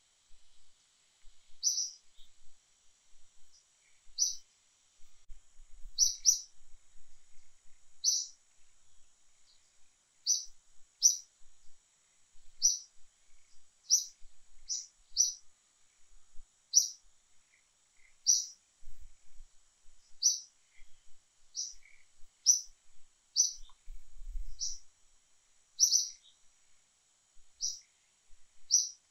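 A bird calling with short, high chirps, repeated irregularly about once a second, over a faint steady high-pitched hum.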